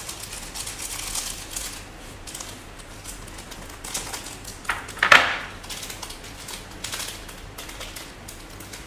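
Close-up eating sounds: chewing and the light clicks and clatter of utensils against dishes, with one louder short noise about five seconds in.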